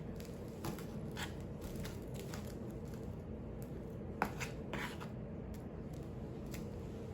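A spoon spreading thick batter in a baking pan: soft scrapes with scattered light clicks of the spoon against the pan, one sharper click about four seconds in.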